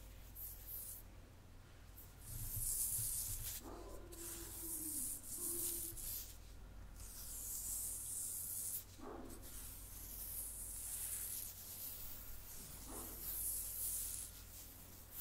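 Close-miked ASMR scratching and rubbing: soft, hissy scratches that come in swells of a second or two with short pauses between, and three brief faint low tones along the way.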